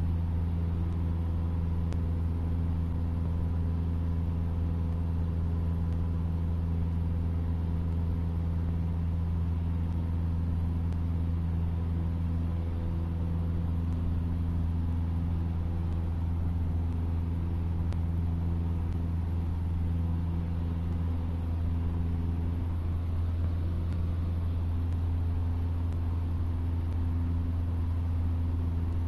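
Cessna 152's Lycoming four-cylinder piston engine and propeller running at steady power, a constant low drone with a slight shift in its tone late on.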